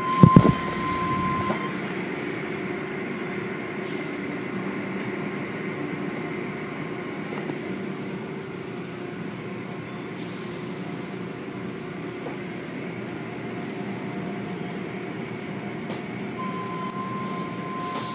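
Automatic tunnel car wash running: a steady mechanical hum and rush of spraying water as cloth curtains work over the cars. A few heavy thumps come right at the start, and a thin high squeal sounds at the start and again near the end.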